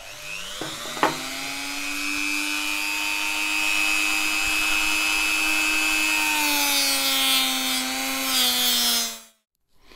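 VonHaus corded rotary tool spinning up and running with a steady whine, its cotton buffing wheel polishing a stainless-steel Seiko 6309 watch case with fine compound for the final shine. The whine sags slightly in pitch in the last few seconds and stops abruptly about nine seconds in.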